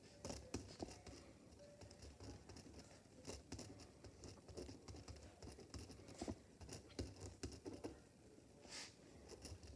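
Faint scratching and tapping of a pen drawing on paper, in short irregular strokes.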